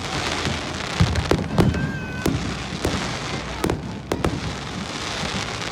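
Fireworks going off: a string of sharp bangs, about seven spread irregularly, over a steady hiss.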